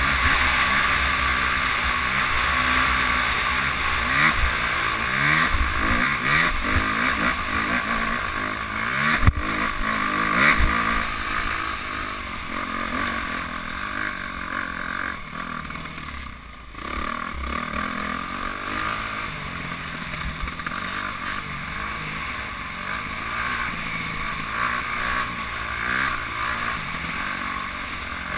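Dirt bike engine under way, revving up and down as the throttle opens and closes over rough ground, with a sharp knock about nine seconds in and a brief easing off around two-thirds of the way through.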